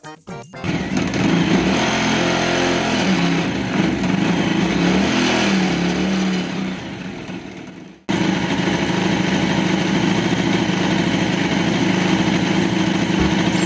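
Motorcycle engine running as the bike rides off, its pitch rising and falling with changes of speed, then fading. After a sudden cut about eight seconds in, the engine runs steadily at an even pitch.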